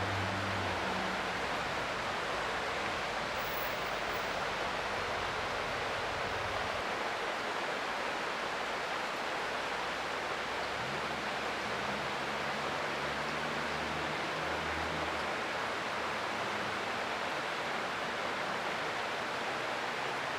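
Creek water rushing steadily, an even hiss with no break, and a faint low hum that comes and goes beneath it.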